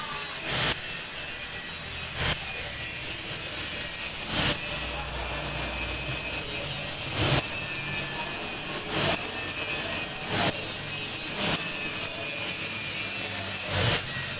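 Liquid soap mixer machine running: a steady motor hum with a constant high whine, and a short knock or scrape every one to three seconds.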